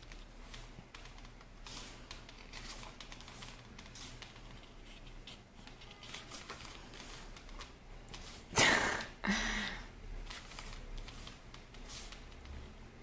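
Glossy photobook pages being turned by hand: soft paper rustles and slides, repeated every second or so. A little after halfway, two louder short rushing sounds come in quick succession.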